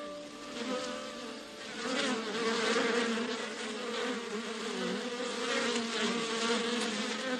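Swarm of bees buzzing, several wavering buzz tones overlapping, growing louder about two seconds in.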